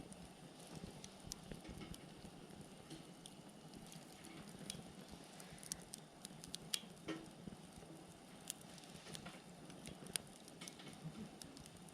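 Wood fire burning, with a soft steady hiss and scattered sharp crackles and pops from the burning firewood.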